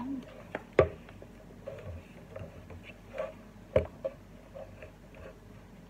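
Hard plastic parts of a wall fan's motor housing knocking and clicking as they are handled and fitted together, with two sharper knocks, one about a second in and one near four seconds, and lighter ticks between.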